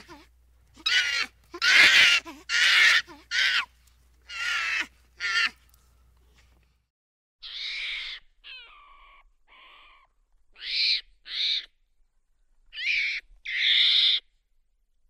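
Monkey calls: a run of short, loud, hoot-like cries in quick succession, a short pause, then more calls, some falling in pitch, ending in two loud cries near the end.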